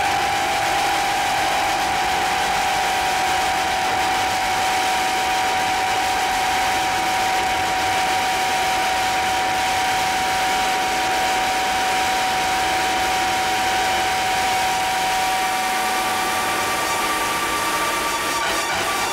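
Noise-music audio feedback: a dense, steady wash of hiss-like noise with two sustained feedback tones held through it. A third, higher tone comes in near the end.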